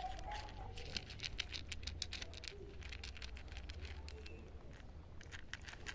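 A cat crunching dry kibble close by: a quick, irregular run of crisp crunches and clicks as it chews.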